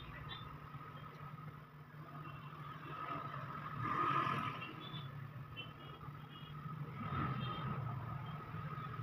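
Steady low mechanical hum with a high whine, swelling louder twice, about four and seven seconds in, with faint short high-pitched peeps scattered through.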